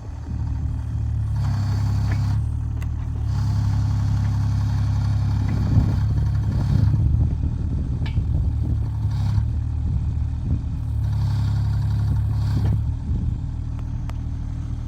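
Kubota mini excavator's diesel engine running steadily, swelling three times under hydraulic load, with a few short knocks and clatter.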